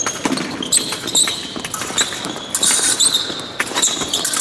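Fencers' footwork during an épée bout: quick stamping steps with many short, high-pitched shoe squeaks and sharp clicks and knocks.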